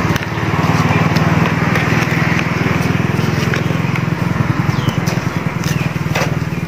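A small engine running steadily at an even low pitch, the loudest sound, over light scrapes and taps of a metal scoop in potting mix. A few short high chirps come near the end.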